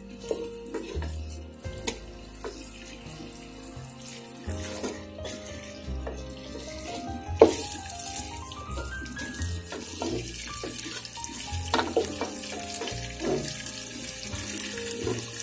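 Chicken and spice paste sizzling in a pot as a spatula stirs and scrapes it, with knocks of the spatula on the pot, the loudest about halfway through; the sizzling hiss grows from about halfway. Background music with a rising run of notes plays over it.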